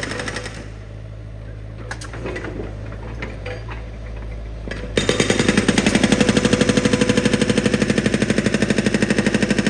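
Construction breaker drill hammering in rapid, even strokes, pausing shortly after the start with only a steady low engine hum and a few clicks. The hammering starts again abruptly about five seconds in, louder than before.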